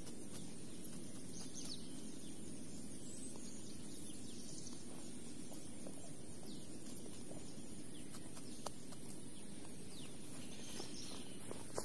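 Outdoor field ambience: a steady background hush with faint bird chirps now and then and a few light ticks.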